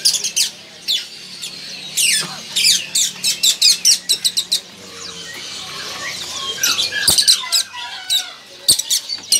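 Many caged small songbirds chirping and twittering together in rapid, high-pitched calls, some sliding up or down in pitch.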